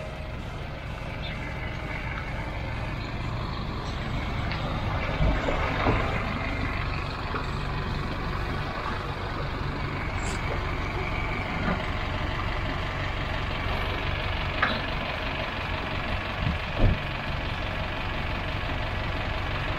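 Tow vehicle's engine running steadily at low revs, with a few sharp knocks now and then.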